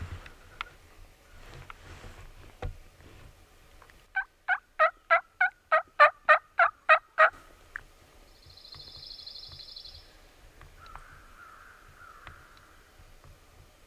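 A run of about eleven wild turkey yelps, evenly spaced about three a second, followed by a brief high buzzy trill.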